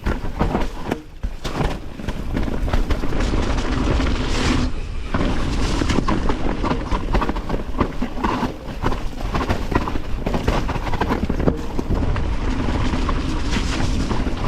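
Mountain bike riding down a rough trail as heard from a GoPro on the bike or rider: tyres rolling and thudding over roots and rocks, with a constant rattle and clatter of the bike and a low rumble of wind and tyre noise on the microphone.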